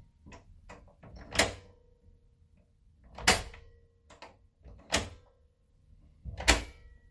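Four sharp knocks or thuds, evenly spaced about a second and a half apart, with lighter taps between them and a brief ringing tone after some.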